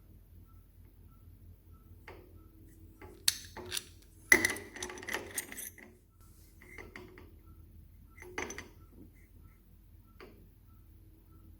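Small hard objects being handled: a few sharp clicks, then a clattering rattle lasting a second or two about four seconds in, and two more single knocks later.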